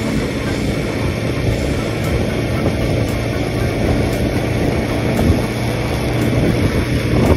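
Honda Cross Cub 110's single-cylinder engine running steadily on the move, mixed with wind and road noise.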